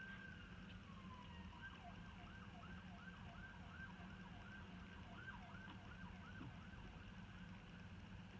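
Faint siren: a slow falling wail, then a quick yelp rising and falling about twice a second that fades out near the end, over a low steady hum.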